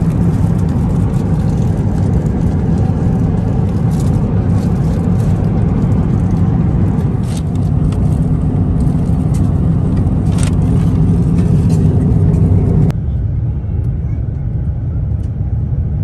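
Steady rumble of airliner cabin noise from an Airbus A350-1000's engines and airflow, heard from inside the cabin, with a few faint clicks. About thirteen seconds in it cuts abruptly to a quieter, duller rumble.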